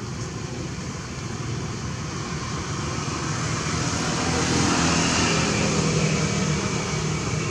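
A motor vehicle's engine passes by, its steady noise swelling to a peak about five seconds in and then easing slightly.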